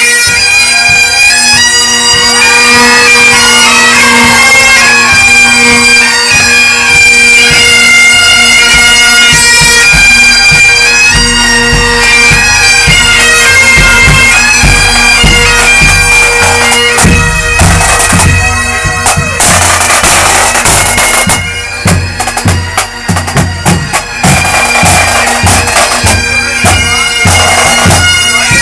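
A band of Great Highland bagpipes playing a tune close up over their steady drones, with drumbeats underneath. Past the middle the sound turns choppier, with rough noisy stretches among the drumbeats.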